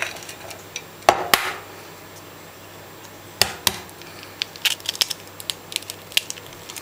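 Eggs being cracked on the edge of a china bowl: two sharp taps about a second in, two more around three and a half seconds in, then a run of small crackles as the shell is broken open.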